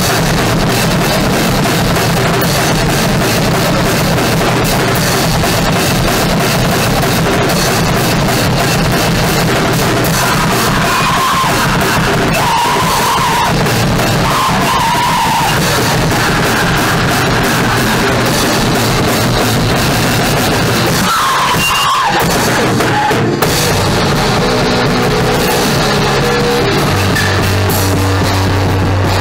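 Noisecore band playing live: distorted electric guitar and drum kit in a loud, dense wall of noise. Near the end a low note is held steady under the din.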